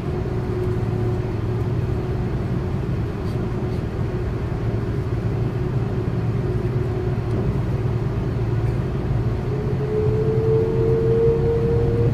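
Airbus A330 engines heard from inside the cabin as the airliner taxis, a steady low hum and drone. About ten seconds in a rising whine comes in and grows louder as the engines spool up.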